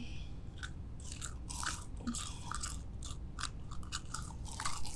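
Plastic spoon scraping thick, iron-filings-laden glue out of a cup into borax solution: a run of short, irregular wet scrapes and squelches, coming thicker toward the end.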